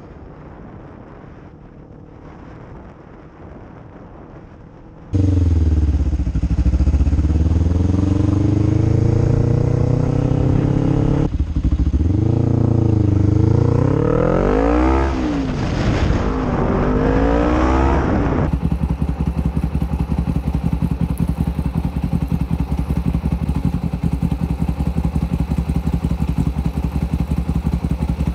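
Motorcycle engine, which comes in abruptly and loud about five seconds in, revving up and dropping back several times as the bike accelerates and shifts. From about two-thirds of the way through it settles into a steady, fast-pulsing run.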